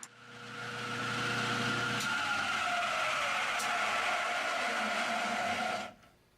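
End mill cutting through silicon bronze weld filler in a steel chuck adjuster screw, giving a steady high squeal with a second tone that slides down in pitch. It builds up over the first second and stops abruptly near the end.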